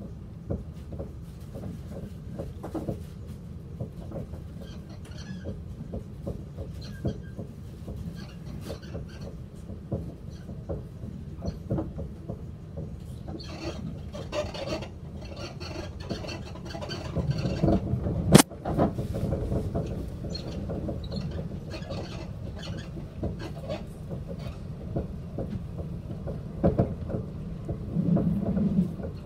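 Cabin of a moving passenger vehicle: a steady low rumble with frequent small rattles and knocks, and one sharp crack a little past the middle.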